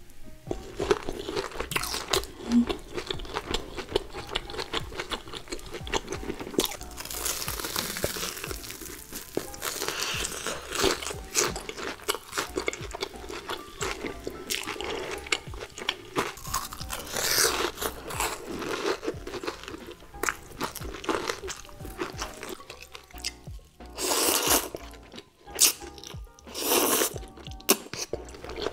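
Crispy breaded, deep-fried cutlet being bitten and chewed close to the microphone: a dense run of crunches, with background music.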